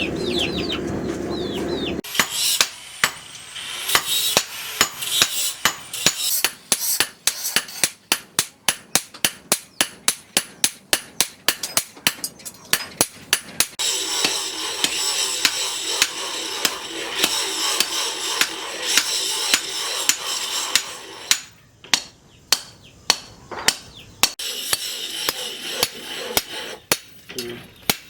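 Blacksmith's hammer striking steel on an anvil in runs of ringing blows, about two to three a second, with short pauses between runs. A steady hissing noise sits under the blows for several seconds midway.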